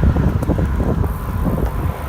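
Wind buffeting the microphone while riding a bicycle, heard as a loud, irregular low rumble.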